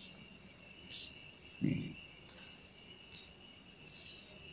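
Faint, steady high chirring of crickets in the background, with one brief low thump about a second and a half in.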